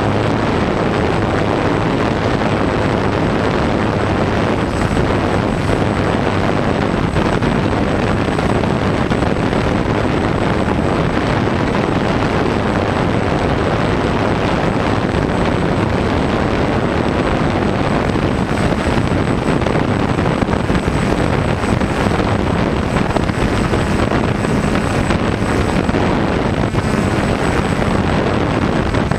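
Multi-rotor drone's electric motors and propellers running steadily, heard from the camera mounted on the drone itself: a dense, even whirring noise.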